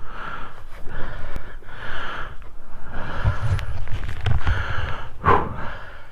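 A man breathing heavily close to the microphone, about one breath a second, with low thumps in the middle and a short voiced grunt near the end.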